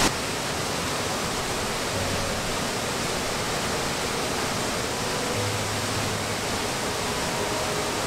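Steady, unbroken rushing of a large waterfall pouring into its plunge pool.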